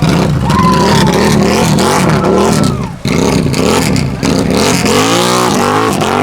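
Off-road vehicle engine revved hard over and over, its pitch rising and falling with the throttle while it churns through a deep mud hole. The revving is loud, with a short drop about three seconds in and a last big rise and fall near the end.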